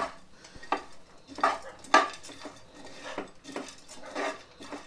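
A spoon scraping and tapping against a nonstick frying pan while stirring chopped almonds, cashews and melon seeds as they dry-roast, in irregular scrapes and clinks about every half second, the loudest about two seconds in.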